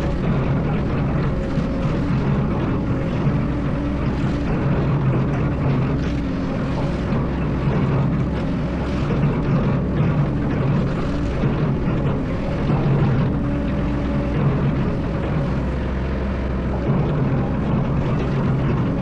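Excavator's diesel engine running steadily, a continuous low drone with small rises and dips in level.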